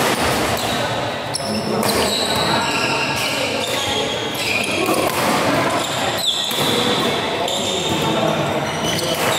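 Badminton rally in an echoing hall: racket hits on the shuttlecock and footfalls on the court, with indistinct voices.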